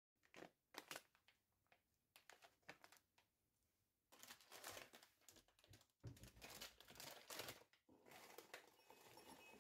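Faint handling noises: a few sharp, separate ticks, then from about four seconds in a denser soft rustling with more ticks mixed in.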